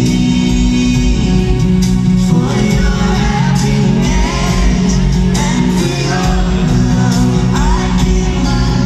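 Live concert music in an arena: a woman singing a slow ballad lead over a full band with sustained bass notes, her voice rising and falling in long sung phrases.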